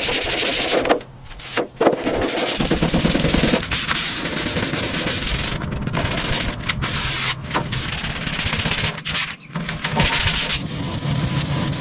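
Loud abrasive rubbing noise, like sanding, in a string of short segments with several abrupt cuts between them.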